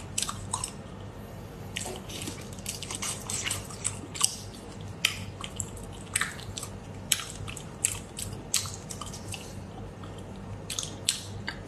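Wet, sticky clicks and drips as plastic-gloved fingers handle a freshly shelled prawn in its marinade, the sauce dripping off the meat back into the bowl. The clicks come irregularly, several a second at times.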